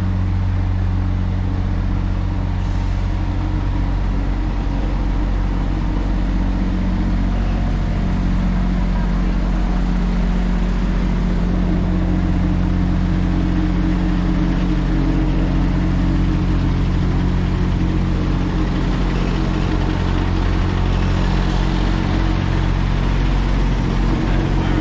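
Steady low engine hum from a parked delivery lorry left running, over general street noise.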